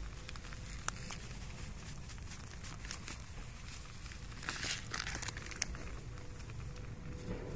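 Plastic bag of rolled oats crinkling as it is handled and the oats are poured into a steel cooking pot, with a denser burst of crinkling and pouring about halfway through. A steady low rumble runs underneath.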